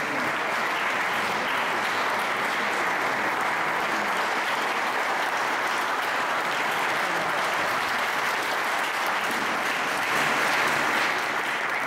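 Audience applauding steadily, a little louder near the end.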